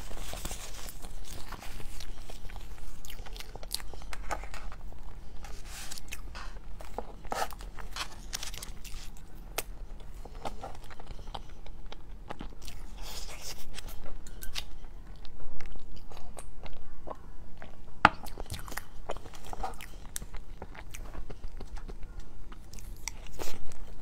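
Close-miked chewing and mouth sounds of eating chocolate crepe cake, a steady run of wet smacks and short clicks, with a fork cutting through the cake on a foil tray near the end.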